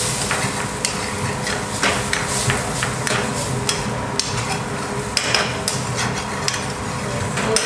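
Metal ladle clanking and scraping against an aluminium frying pan as curry sauce is stirred in, irregular sharp knocks over a steady hiss of the curry frying on the gas flame.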